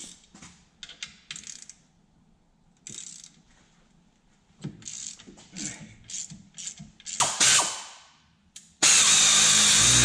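A hand ratchet wrench clicking in short spells on the differential mount bolts, with metal tool handling between. About nine seconds in, a pneumatic ratchet on an air hose starts up and runs loudly and steadily.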